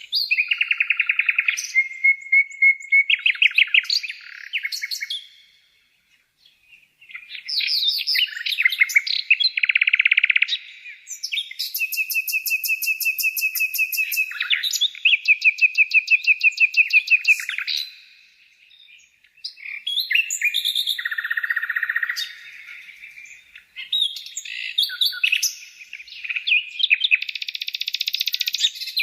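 A songbird singing a long, varied song of fast trills, warbled held notes and rapid chirps, broken by two short pauses.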